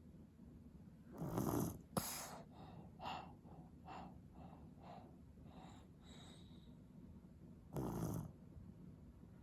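Eight-month-old baby snoring in sleep: a long snore about a second in and another near the end, with a row of short, faint snuffles about every half second between them and a sharp click about two seconds in.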